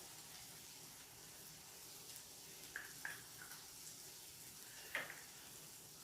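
Faint sizzle of beans in a pan, with a few light clinks of a utensil about halfway through and one sharper tap near the end as the pesto is stirred in.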